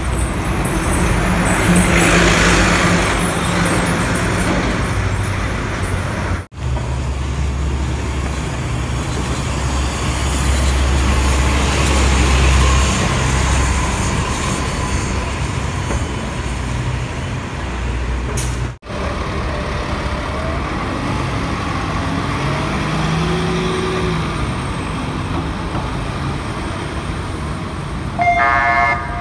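Street traffic with buses passing: bus engines running and road noise, broken by two brief dropouts. A short vehicle horn toot near the end.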